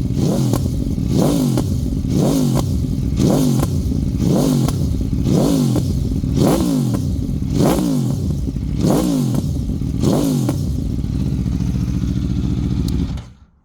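Aprilia RSV4 Factory V4 engine through an aftermarket sport exhaust, revved in quick throttle blips about once a second, each rising and falling back. Near the end it settles to a steady idle and then cuts off suddenly.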